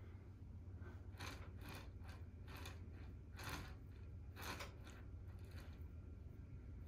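Fingers pinching and pressing soft clay coils together on a hand-built cup: a series of short, faint rubbing and scraping strokes, about one a second, over a steady low hum.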